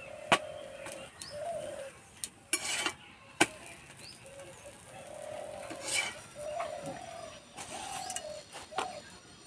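Doves cooing over and over in the background, each call a short arched note. Over them come sharp clinks of a metal spatula against an iron tawa and a few short scraping sounds as a parota is turned and lifted off the pan.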